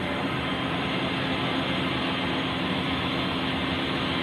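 Steady drone of a ship's engine-room machinery running, with a constant hum underneath.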